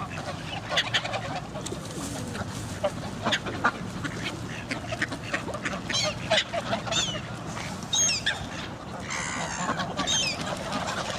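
A flock of geese and ducks calling over one another with honks and quacks, with short high chirping calls mixed in.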